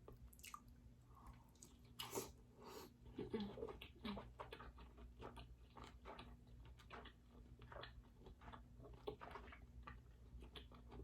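Close-up chewing of king crab meat in garlic butter sauce: quiet wet mouth smacks and clicks in an irregular run, a few louder ones between about two and four and a half seconds in.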